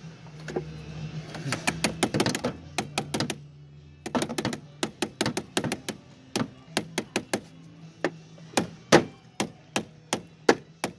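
Soft-faced mallet tapping a car battery's cable terminal clamp down onto the battery post. A quick run of light taps comes about one and a half to three seconds in, then steady knocks about two a second.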